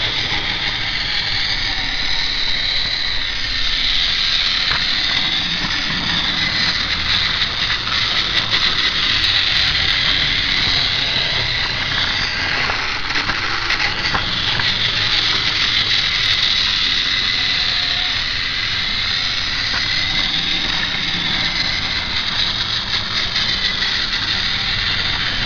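Battery-powered Tomy James toy train running on plastic track: its small electric motor and gears make a steady high whine whose pitch wavers slightly.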